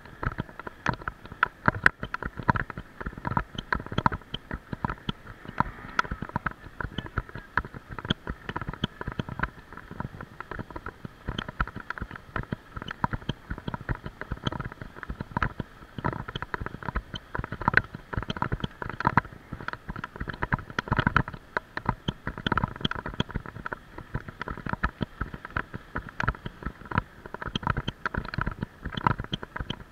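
Bicycle-mounted camera rattling and knocking in its mount from road vibration while riding, a constant irregular clatter of clicks over a steady hum.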